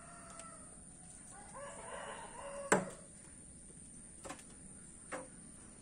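A rooster crowing faintly about two seconds in. A single sharp smack comes just after it, the loudest sound here, followed by two fainter ones.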